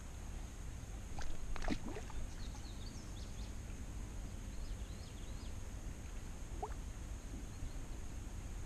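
Steady wind rumble on the microphone at the water's edge. A few sharp knocks come about a second in, and faint high chirps follow.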